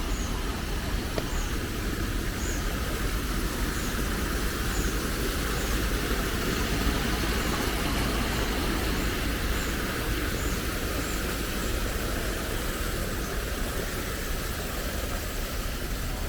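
Steady rain ambience with the hiss of traffic on a wet road, swelling and fading in the middle. A bird gives short high chirps about once a second through most of it.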